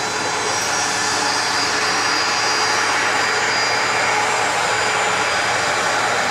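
Bombardier CRJ-200's twin rear-mounted turbofan engines running at taxi power: a steady whining rush with thin, high whistling tones, growing slightly louder as the jet taxis nearer.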